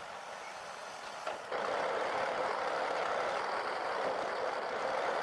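Heavy truck running with a steady rushing noise that jumps sharply louder about a second and a half in, then holds steady.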